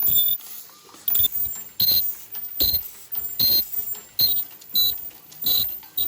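Machine in a security-tag factory cycling in a steady rhythm: a sharp clack with a short high ring, repeating about every three-quarters of a second.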